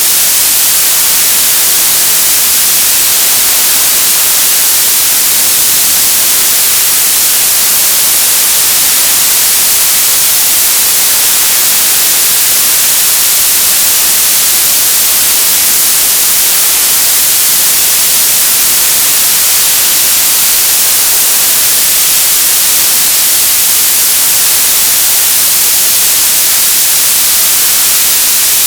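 Television static: a loud, steady hiss of untuned TV noise, heaviest in the highs, with no tones or breaks.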